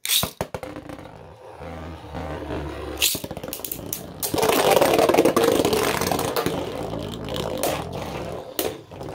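Two 3D-printed Beyblade spinning tops launched into a plastic stadium, with sharp clicks from the launch at the start. They then spin and scrape around the bowl with clattering clacks as they hit each other, loudest from about four seconds in.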